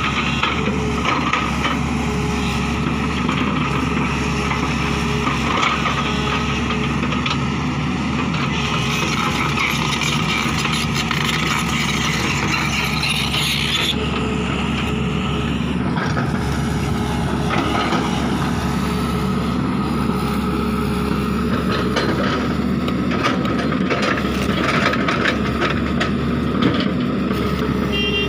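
Tata Hitachi EX200LC crawler excavator's diesel engine running steadily under digging load, with scattered knocks and scrapes as the bucket works through the soil.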